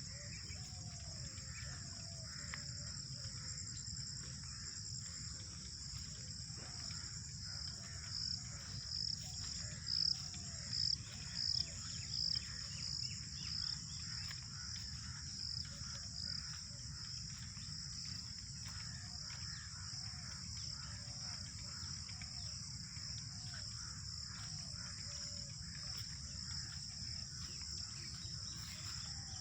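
Steady high-pitched insect chorus, such as crickets or cicadas, swelling in a run of louder pulses about a third of the way in. Birds call repeatedly in short curved notes over a low, even background rumble.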